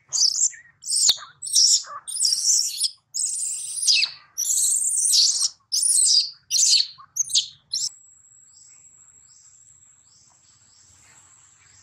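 A baby long-tailed macaque screaming in distress: a rapid run of shrill, high-pitched cries, an infant calling for its mother. The screams stop about eight seconds in, leaving only a faint steady high tone.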